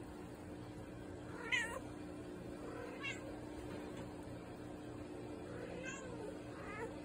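Domestic cat meowing: four short, high meows, the first about one and a half seconds in the loudest, the last two close together near the end.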